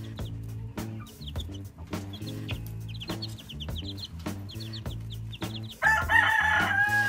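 Chicks peeping in quick bursts of short high cheeps over background music with a steady beat. About six seconds in, a louder drawn-out wavering call starts and runs past the end.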